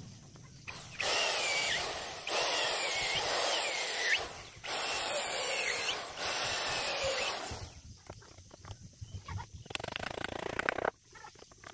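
Cordless electric drill boring into a wooden plank in four runs of a few seconds each, its whine dipping as the bit bites into the wood. A few light knocks follow near the end.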